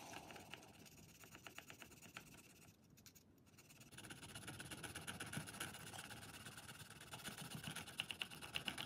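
Small screwdriver tip scratching and scraping dried rust-effect weathering off the side of a model railway mineral wagon in quick short strokes. It is faint, with a brief pause about three seconds in before the scraping resumes a little louder.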